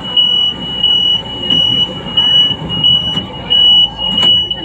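LRT train's door warning beeper sounding a steady, high, repeating beep about twice a second while the train stands at a station, over the low rumble of the car, with a sharp knock a little before the end.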